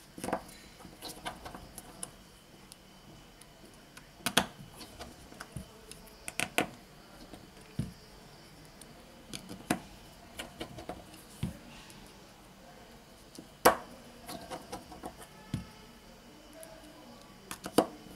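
Scattered small clicks and taps of a smartphone's internal plastic and metal parts and a precision screwdriver being handled during reassembly, at irregular intervals, with a few sharper clicks standing out.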